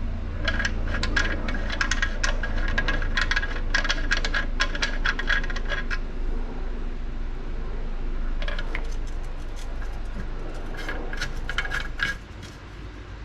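Metal transmission filler tube clinking, rattling and scraping against the car's underbody as it is worked through a hole: two spells of quick, light metallic clicks with a ringing edge. A low steady hum runs underneath and drops away about twelve seconds in.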